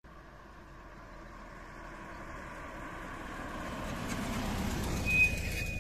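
Engine of a Volkswagen T2 bus, an air-cooled flat-four, running and growing steadily louder. A short, steady high tone starts near the end.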